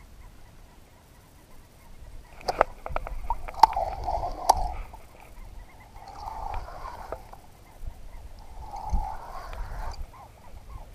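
Spinning reel being cranked in short bursts while a hooked fish pulls the rod into a bend. A few sharp clicks and knocks come about two to four seconds in, before the winding.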